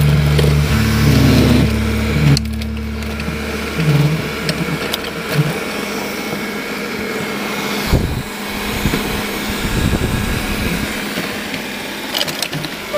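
Xiaomi Mi robot vacuum running, a steady motor hum with scattered clicks and knocks as it works over the floor. A deep low part of the hum drops away about five seconds in, and sharper knocks come near eight seconds and near the end.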